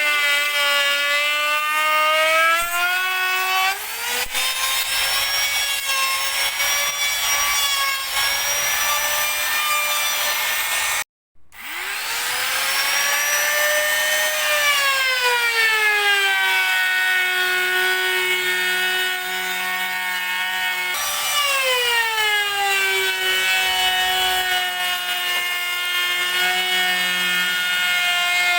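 Electric woodworking power tool whining as it cuts wood, its pitch sagging under load and rising again several times. About a third of the way in it cuts out for an instant and then winds back up.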